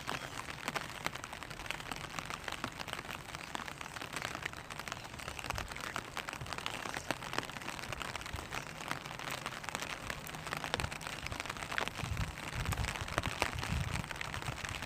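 Rain falling on a clear vinyl umbrella: a steady patter of many small drops tapping the plastic canopy, with some heavier low thuds near the end.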